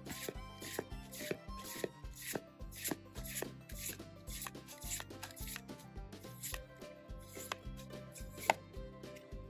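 Background music with a steady beat of about two strokes a second over a bass line. One sharp click near the end.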